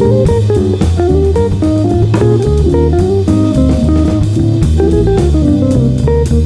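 Background music: a jazzy tune led by guitar over bass guitar and a steady drum beat.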